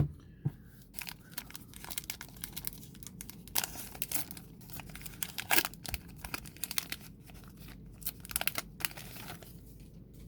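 A sharp knock at the very start, then a card pack's foil wrapper being torn open and crinkled in a run of short crackles.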